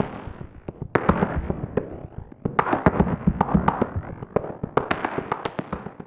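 Crackling fireworks: dense runs of rapid sharp pops and cracks, surging again about one and two and a half seconds in, then dying away at the end.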